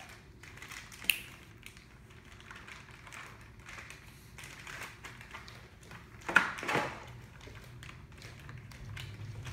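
Small plastic Play-Doh tubs and a clear plastic bag being handled at a table: light taps and crinkling, with a sharp click about a second in and a louder rustle a little after six seconds.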